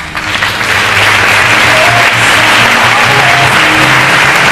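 Audience applauding over music with a steady bass line, starting loud right after a guest is introduced.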